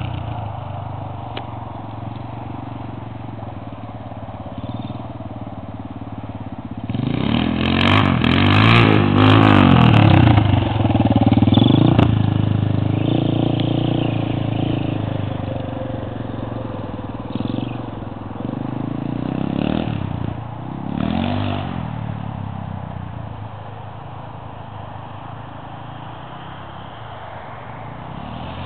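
The single-cylinder engine of a 2007 Kawasaki KLR650 dirt-biking off-road. It revs hard with the pitch rising and falling, loudest from about 7 to 12 seconds in, then fades as the bike rides away.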